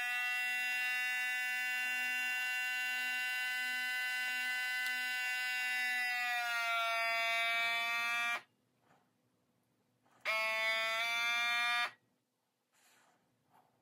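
Countertop vacuum sealer's pump running with a steady hum as it draws the air out of the bag, its pitch sinking slightly before it cuts off about eight seconds in. It runs again for under two seconds about ten seconds in, pitch sinking again, and stops.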